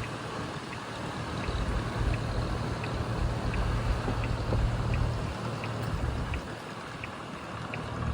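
Seaside ambience: water lapping at the shore over a steady low rumble, with a faint tick repeating about every half second.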